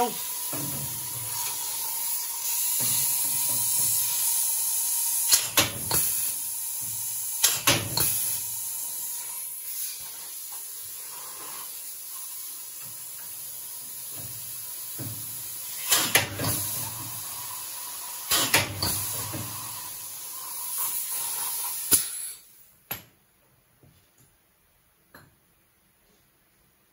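Pneumatic air tool on a compressed-air hose hissing steadily, with several sharp loud bursts as it puts plug-weld holes into the sheet metal of the radiator support. The air cuts off about 22 seconds in, leaving a few faint clicks.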